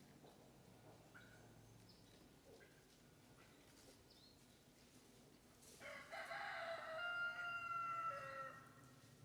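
A rooster crowing once, a single long call that starts about six seconds in and lasts almost three seconds. Faint short chirps of small birds come before it.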